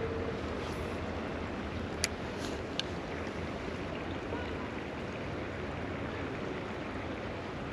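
Creek water rushing steadily, with two sharp clicks about two and three seconds in.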